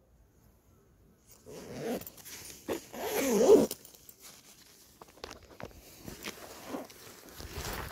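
Clothing and a bag rustling and scraping as a person gets up from sitting on rock, with a zipper-like rasp. It starts about a second in and is loudest about three seconds in, then thins to scattered small clicks and scuffs.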